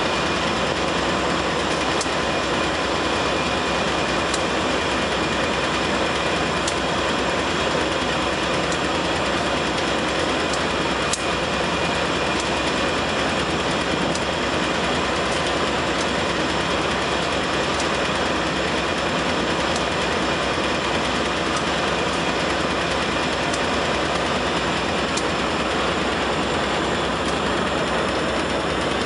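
Container freight wagons rolling past on the rails: a steady noise of steel wheels on track, with a sharp tick every couple of seconds.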